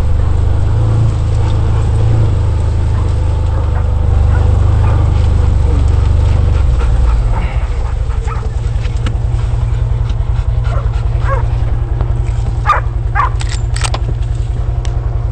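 Catahoula hunting dogs barking and yipping in short calls, mostly in the second half, over a steady low rumble that turns into a fast low pulsing about halfway through.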